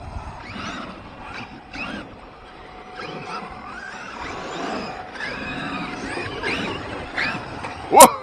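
Electric RC monster trucks driving on dirt, their motors whining up and down in pitch as the throttle is worked. About eight seconds in, one sudden, very loud, sharp sound stands out.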